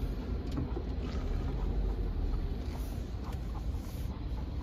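Steady low rumble of a car, heard from inside the cabin, with a few faint clicks.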